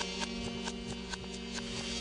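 Music with sustained held chords and a steady light beat of about two ticks a second.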